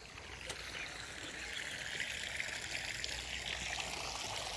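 Running water trickling and pouring in a steady rush that grows louder from about a second in.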